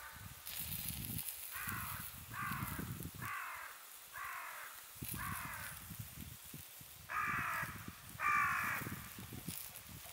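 Crow cawing: seven caws, the first five about a second apart, then two louder ones near the end.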